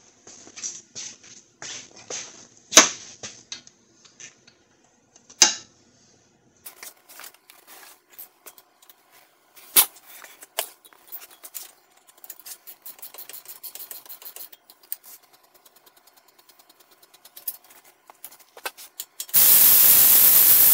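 Tools and parts being handled, with scattered clinks and a few sharp knocks. Near the end a cordless power tool runs loudly for about a second and a half on the front brake caliper bolts, loosening them.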